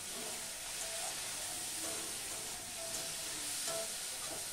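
Potatoes, tomato and peas sizzling steadily in a steel kadai over a gas flame as a spatula stirs them, with light scraping against the pan.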